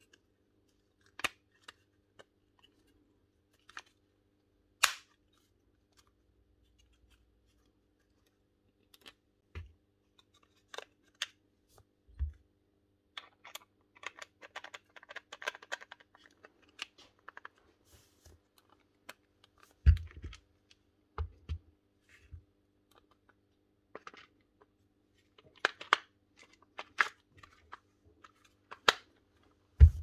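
Scattered clicks, taps and light rattles of plastic and metal parts as a Makita DTD156 cordless impact driver is put back together by hand, its motor and gear housing seated into the plastic shell. There is a short stretch of busier rattling midway and a few dull knocks about two-thirds through.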